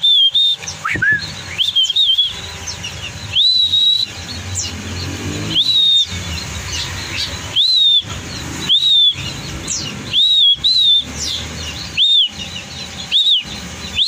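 A person whistling short notes, each rising then falling, about ten times at intervals of a second or so, calling a pet bird to perch on the outstretched hand. Faint chirps of other birds run behind.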